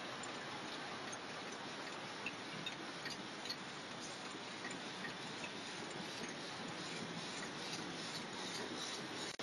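Single-roll toilet tissue packing machines running: a steady mechanical hiss with light, irregular ticks from the moving parts, the ticks more frequent near the end.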